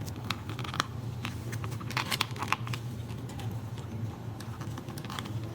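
Scattered small plastic clicks and rattles of wiring connectors being handled, pulled apart and pushed back together, in a few quick clusters over a steady low hum.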